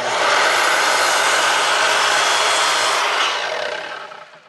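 Sliding miter saw running and cutting through a square wooden leg blank to trim its end. The motor spins down for the last second or so.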